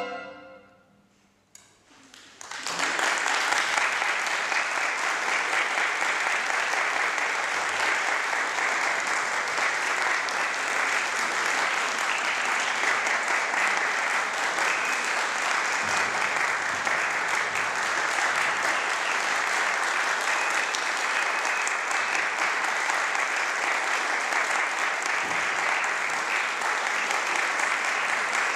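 The final orchestral chord rings away into a moment of silence. Then audience applause breaks out about two and a half seconds in and keeps up steadily.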